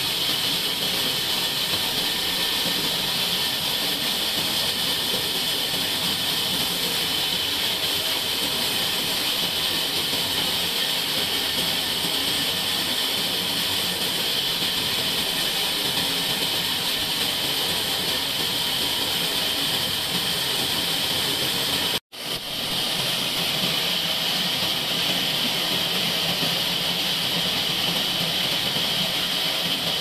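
Band sawmill blade running through a log on the carriage, sawing it lengthwise with a steady, high hissing whine. The sound drops out for an instant about two-thirds of the way through, then carries on the same.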